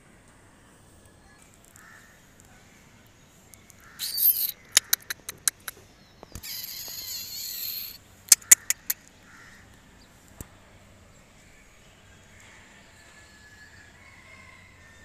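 Crows cawing: a cluster of harsh calls and sharp clicks between about four and nine seconds in, the rest quiet.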